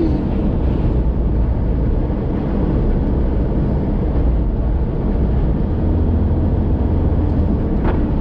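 Steady engine and road rumble heard from inside a moving car's cabin, with tyre hiss on a wet road.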